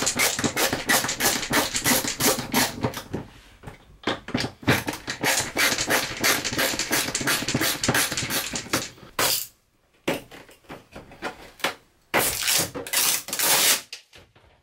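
A screwdriver backing the screws out of a shower-head hanger on an RV shower wall: a rapid run of clicks and scrapes, about four or five a second, broken by a few short pauses.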